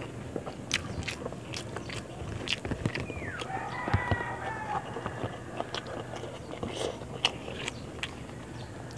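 Close-up eating sounds: chewing and wet mouth clicks as a handful of rice and fish is eaten by hand. A rooster crows in the background about three and a half seconds in.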